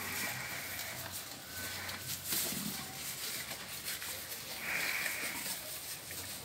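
A cow and a young calf feeding on fresh-cut grass: rustling and crunching of grass. Two short breathy sounds come about a second long each, one at the start and one about five seconds in.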